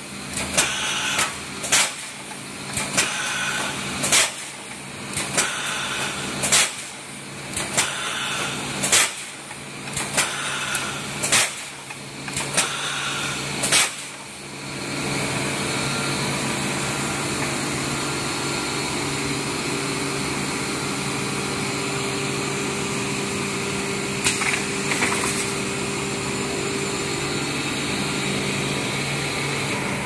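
Cable tray mesh welding machine running: sharp metallic clacks come about once or twice a second as it cycles through its welds, then about halfway through they stop, leaving a steady machine hum with two more clacks near the end.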